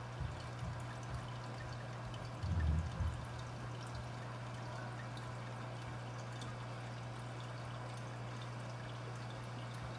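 AquaClear 30 hang-on-back aquarium filters running: a steady trickle of water falling back into the tank, with a low, even hum. A dull bump comes about two and a half seconds in.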